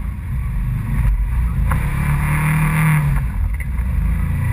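Polaris RZR side-by-side engine running with a low rumble, revving up about a second and a half in and dropping back to idle a couple of seconds later.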